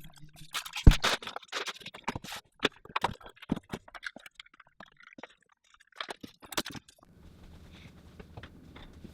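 Cardboard box and packing material being handled: scrapes, rustles and knocks, with a sharp thump about a second in. The handling stops about seven seconds in, leaving a low steady hum.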